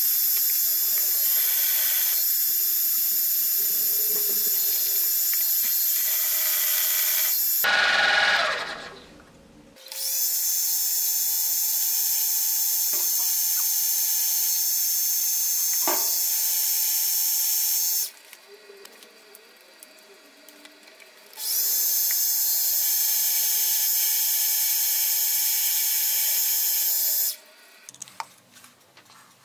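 The 1950 drill milling machine running with a high, steady whine as it drills into a steel gear. It stops and restarts twice, briefly about a quarter of the way in and for a few seconds past the middle, then stops near the end.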